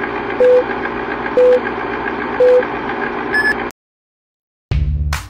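Clock-mechanism sound effect: steady whirring with fast ticking and a short beep about once a second, cut off by a click after about three and a half seconds. After a second of silence, music opens with two low drum hits near the end.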